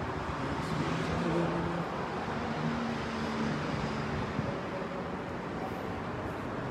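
Steady background rush of an indoor car showroom, even and without distinct events, with faint low tones drifting in and out about one to three seconds in.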